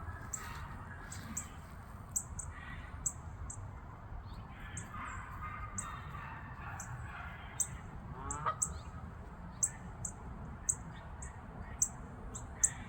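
Geese honking intermittently, with short high-pitched ticks recurring about once a second over a steady low outdoor background.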